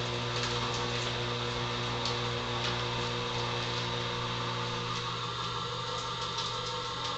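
Small electric screw-type oil press running steadily while pressing dried acorns: a constant motor hum with a low drone, and faint scattered clicks from the screw working the nuts.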